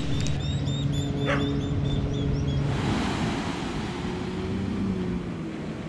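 Surf washing onto a sandy beach, coming in loudly about three seconds in, over a low steady hum like a distant motor.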